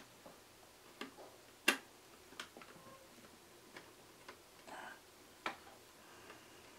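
About six faint, irregular clicks of a screwdriver and a small screw being worked out of the synthesizer's metal frame, the sharpest just under two seconds in.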